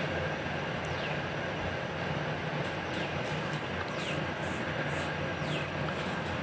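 Onions, tomatoes and cashews frying in a non-stick kadai over a steady low hum and hiss. About three seconds in, a wooden spatula starts stirring them, giving a run of short scraping strokes.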